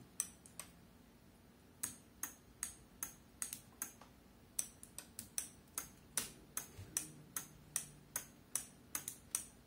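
Small blue relay modules clicking on and off in a steady rhythm, about two or three clicks a second, with a short pause about a second in. The clicks are the relays of a DIY ATtiny85 flasher relay switching a motorcycle's turn signals and hazard lights.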